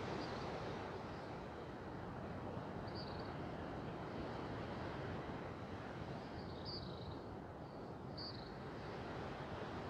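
Steady background noise of open-air ambience, with a few faint, short, high chirps scattered through it.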